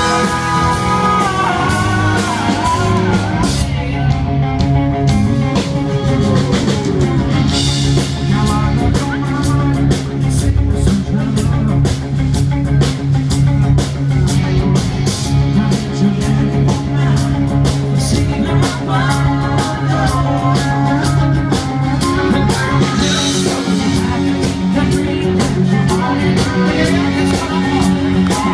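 Country-rock band playing live through a PA: drums, guitars and a lead vocal singing.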